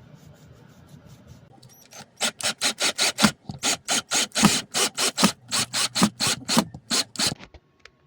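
Rapid back-and-forth rasping strokes of a hand tool working material, about four strokes a second, starting about two seconds in and stopping shortly before the end.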